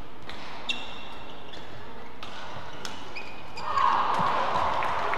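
Badminton rally on an indoor court: sharp racket strikes on the shuttlecock about every second, with players' shoes squeaking on the court mat. About three-quarters of the way through, a louder swell of crowd noise rises.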